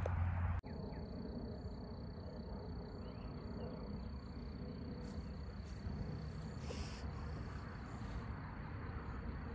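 An insect trilling at one steady high pitch over a low, even outdoor background hiss. A low rumble cuts off abruptly about half a second in.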